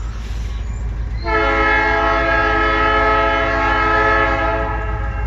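Diesel locomotive air horn sounding one long, steady blast of several tones at once. It starts about a second in and stops just before the end, over a low steady rumble.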